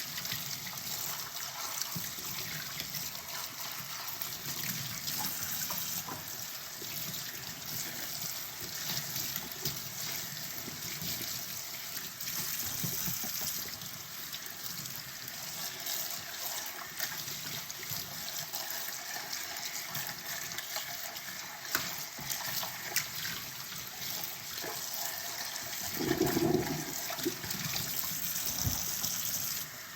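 Kitchen tap running into a sink during hand dishwashing, steady throughout, with scattered light clinks of dishes and utensils being handled. A duller, louder knock comes near the end.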